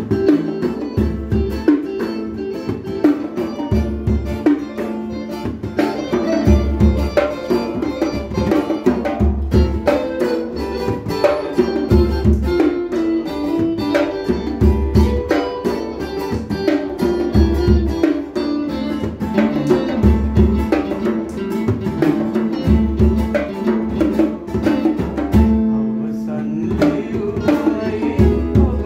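Small calypso band playing: strummed acoustic guitar, electric guitar and a hand-played conga drum keeping a steady rhythm.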